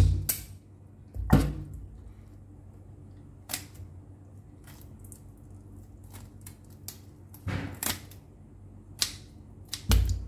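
Kitchen scissors snipping through small fish into pieces over a stainless-steel sink: sharp, scattered snips and clicks, about seven or eight in all, with a few heavier knocks against the steel sink.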